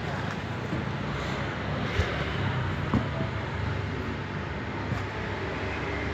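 Steady low background rumble, like traffic, with a few sharp knocks about two, three and five seconds in.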